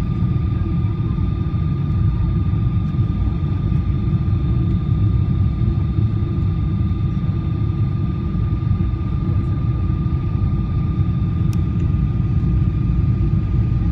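Steady jet engine and airflow roar inside the passenger cabin of a Boeing 777-300 descending on approach, with a faint steady whine above the low rumble.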